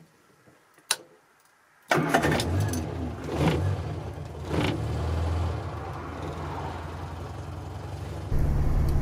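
A click of the ignition key, then the 1968 Morris Minor's four-cylinder A-series engine starting and catching about two seconds in, settling into a steady idle. Its level steps up near the end as the engine is revved.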